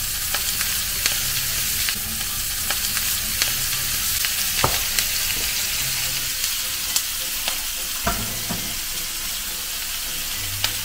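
Sliced onions frying in a pan with freshly poured oil: a steady sizzle full of small crackles, with a few sharper pops.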